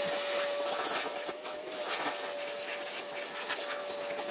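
Vacuum cleaner running with a steady high whine and hiss, its hose nozzle cleaning out the empty air filter housing, with scattered clicks and rattles.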